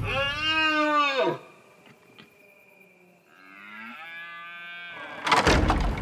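Red deer stags roaring in the rut: one loud roar that rises and then falls in pitch, lasting about a second and a half, then a second, quieter roar that rises in pitch about three seconds in. Near the end a loud burst of knocking and rustling begins.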